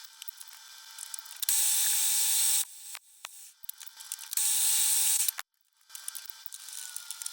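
Metal lathe running with a steady whine, broken by two loud hissing stretches of about a second each, the second cut off suddenly.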